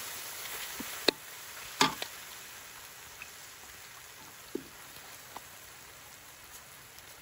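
Fermented soybeans and ginger sizzling in a steel wok as a metal ladle stirs them, the sizzle fading slowly. The ladle clinks sharply against the wok about a second in and twice near two seconds, with lighter taps later.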